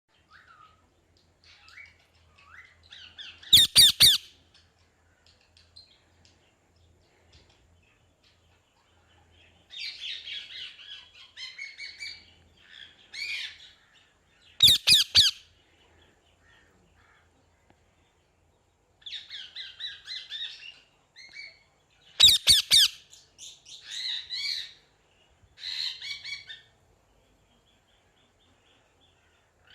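A parrot calling: three short, loud, harsh squawks (a few seconds in, about halfway, and about three quarters through), with runs of quieter chattering calls between them.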